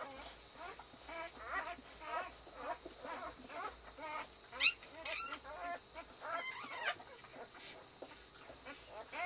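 Newborn husky puppies squeaking and whimpering in short, high cries, several a second, with one sharper squeal about halfway through.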